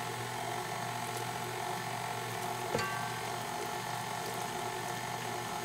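KitchenAid Ultra Power stand mixer (300 W) running steadily at a low speed, its flat beater mixing pancake batter in a stainless steel bowl, with a brief click near the middle.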